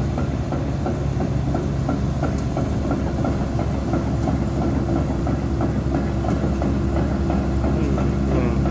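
XCMG XE215C hydraulic excavator's diesel engine running steadily with a low hum while the boom and bucket move, with a regular clicking about three times a second.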